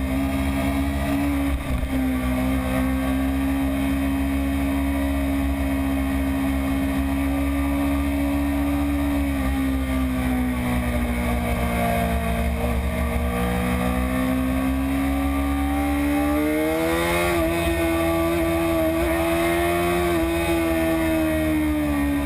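BMW S1000RR inline-four engine pulling at fairly steady revs while riding, heard from the bike itself. The pitch sags slightly about ten seconds in, climbs again after about sixteen seconds, and eases back near the end.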